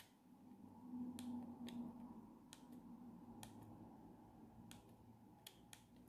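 Faint clicks of a Siemens A52 mobile phone's plastic keypad buttons being pressed, about ten at uneven intervals, over a faint low hum.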